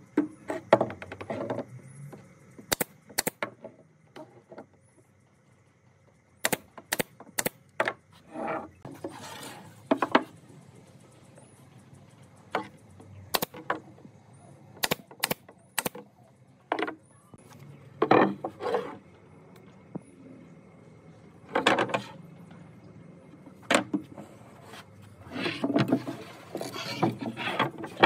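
Nail gun firing brads into pine boards: a string of sharp single shots, often two or three in quick succession, between softer knocks and scrapes of the boards being handled on the table.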